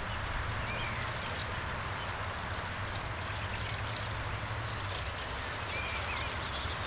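Garden-scale model train running on outdoor track with a steady low hum, and a bird chirping faintly twice.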